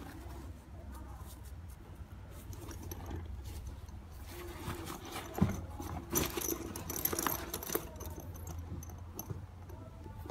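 Handling noise of a black leather and canvas messenger bag: rustling of the material with clicks from its metal zipper and strap hardware, busiest in the middle, over a low steady hum.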